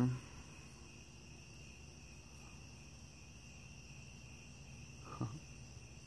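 Steady chorus of night-singing insects, a continuous high-pitched trill, with a brief low human vocal sound about five seconds in.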